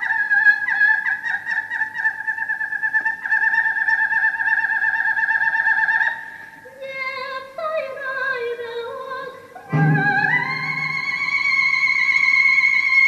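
Operatic coloratura soprano singing: a high note with a fast trill for about six seconds, then a quieter run of lower notes stepping downward, then a loud entry just before ten seconds in and a high note held to the end.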